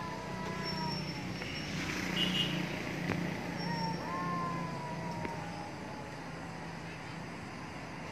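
Stray tabby cats caterwauling: long, wavering mating yowls, one trailing off about a second in and another drawn-out yowl around four to five seconds in. A steady low hum runs beneath them and fades after about six seconds.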